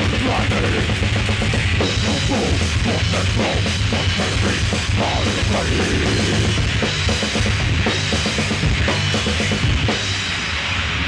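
Live death metal from a three-piece band: distorted electric guitar, bass and a drum kit with bass drum and cymbals, played at full, steady loudness. It gets a little quieter about ten seconds in.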